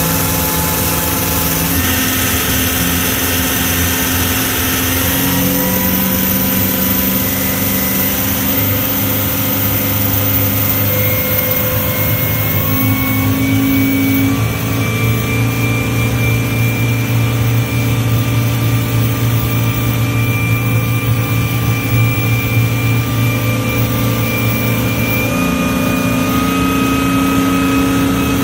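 Yanmar 8LV 370 hp V8 turbo diesel running hard with the boat under way, heard loud through the open engine hatch. Its note changes pitch a few times in the first half, holds steady through the middle, then drops back near the end.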